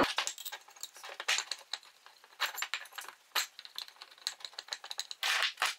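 Light, irregular clicks and clinks of small metal parts being handled: aluminum dividing-head castings and steel screws knocking together as they are fitted, with a short scrape near the end.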